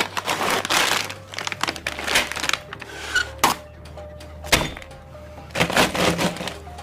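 Crunching bites of crunchy food, in irregular bursts, over background music with a melody.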